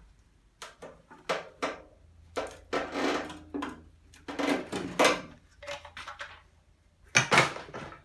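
Irregular scraping and knocking noises, about a dozen over several seconds, as a rubber hose is cut off a washing machine's plastic filter housing; the loudest comes about seven seconds in.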